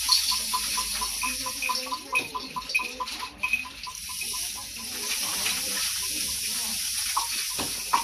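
Rain sticks and small hand shakers played together in a steady, rain-like pouring hiss. A quick, even ticking of about five strokes a second runs through the first half and then fades.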